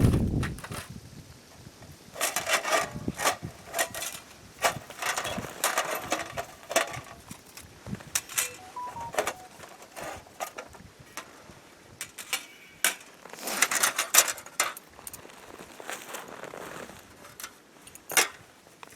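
Irregular clinks, knocks and rustling of gear being handled, with clusters of sharp clicks.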